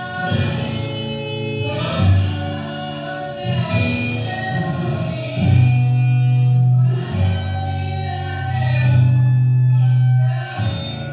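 Song with singing over guitar accompaniment, from a live performance recording, with long held notes.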